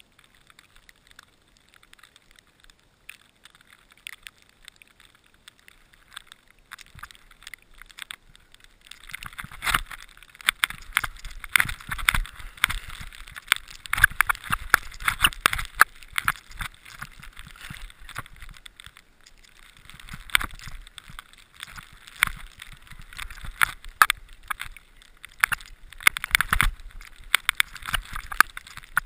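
Skis running and scraping through snow, heard from a helmet-mounted GoPro: faint at first, then from about nine seconds in a loud, uneven rushing with many sharp clicks and knocks as the skier turns down the slope.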